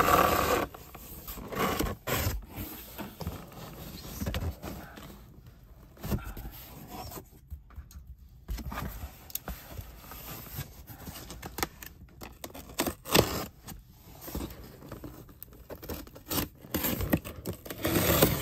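Packaging and craft supplies being handled as a goodie bag is opened and unpacked: irregular rustling and scraping with scattered small clicks and knocks.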